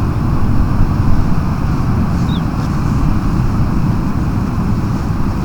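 Steady, heavy wind rumble buffeting the microphone.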